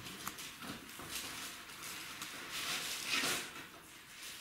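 Faint rustling and handling noises, with a few soft swells of rustle and a couple of small clicks.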